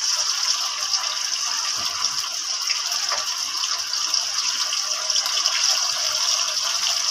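Chicken kandi (toothpick-skewered chicken and capsicum pieces) deep-frying in a pan of hot oil, which sizzles steadily.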